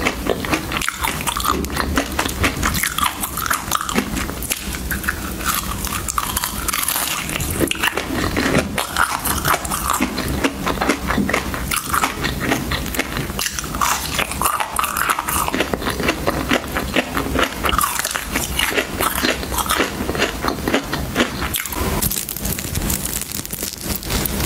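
Hard coloured ice being bitten and crunched between the teeth close to the microphone: a dense, continuous run of crackling crunches.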